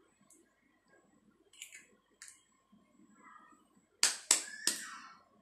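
A whole egg knocked three times in quick succession against a mixing bowl to crack it, about four seconds in, followed briefly by the shell being pulled apart. A couple of faint clicks come before it.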